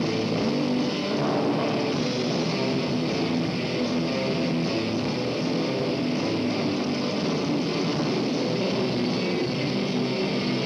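Rock band playing live: electric guitars, bass guitar and drum kit.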